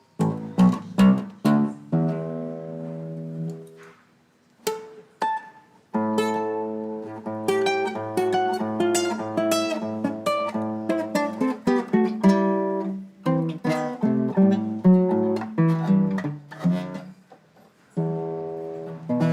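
Ten-string guitar played solo. It opens with a few plucked chords and a short pause, then runs on in picked notes and chords.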